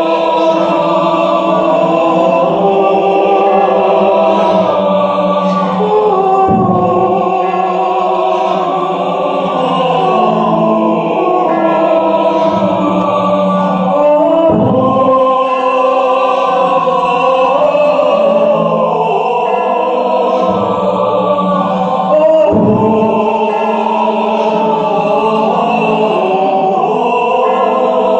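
Live choir singing sustained, wordless chant-like harmonies, with a few low thuds in the accompaniment.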